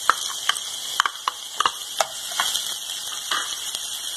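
Sliced onions sizzling in hot oil in an aluminium pot, with a metal spoon clinking and scraping against the pot as they are stirred; the clinks come several times in the first two and a half seconds.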